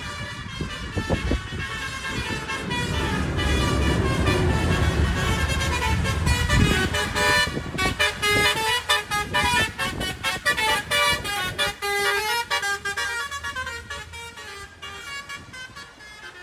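Basuri telolet truck horn playing a melody of stepped, shifting notes, which come short and fast in the second half. A low rumble runs underneath around the middle.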